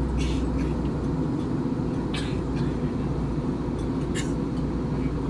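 Steady low rumble of an Airbus A321 cabin in flight, engine and airflow noise, with a few faint short ticks or rustles over it.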